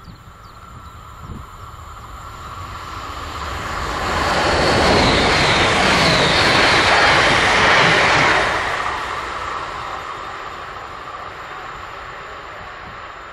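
Siemens Desiro ML electric multiple unit (DB class 460) passing at speed. The rumble and rush of its wheels on the rails build up as it approaches and are loudest for about four seconds as the cars go by, with a brief thin high whine as the front passes. The sound then fades as the train runs away.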